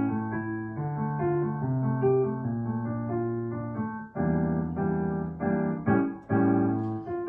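Yamaha digital piano playing a slow melody over held low chords. About four seconds in, the playing turns to chords struck roughly twice a second.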